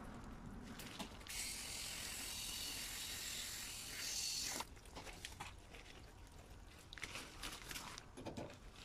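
Garden hose spray nozzle hissing for about three seconds and then shut off sharply, followed by a series of small clicks and knocks as the nozzle is handled and put down.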